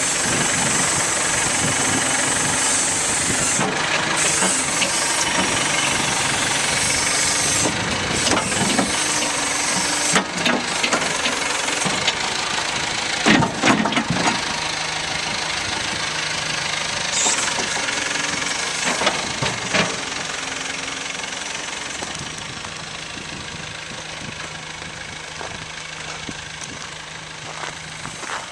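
Terex 760 backhoe loader's Perkins diesel engine running steadily, with a few short knocks near the middle. It grows gradually quieter over the last third.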